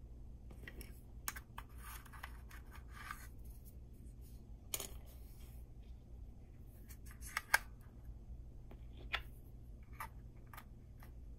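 Small disc magnets and 3D-printed PLA parts handled on a tabletop: scattered light clicks and scrapes, the sharpest a little past the middle, over a low steady hum.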